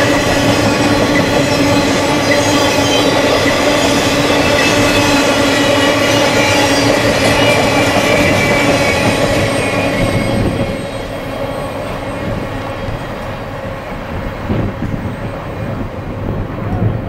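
Intermodal freight train of trailers on flatcars rolling past close by, its steel wheels squealing on the rails in steady ringing tones over the rumble and clatter of the cars. About ten seconds in the noise drops and grows duller.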